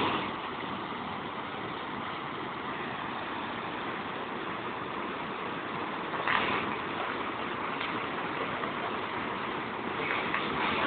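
A river rushing white through a narrow rocky gorge, a steady rush of water that swells briefly about six seconds in.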